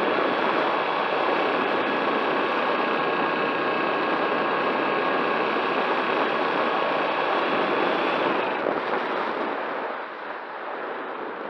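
A small motor running with a steady whine over rough mechanical noise. About eight seconds in, the whine falls in pitch and cuts off, leaving wind noise.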